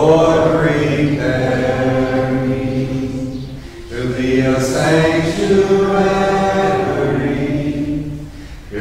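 Slow sung chant holding long, level notes, in two phrases of about four seconds each with a brief break between them.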